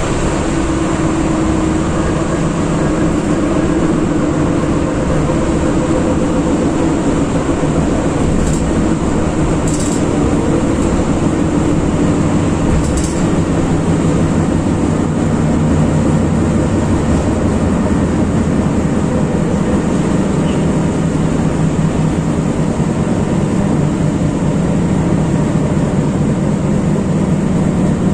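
Interior of an EN57 electric multiple unit's motor car running at speed: a steady hum from the traction motors and gearing over the rumble of wheels on the rails, with a few brief clicks about a third of the way in.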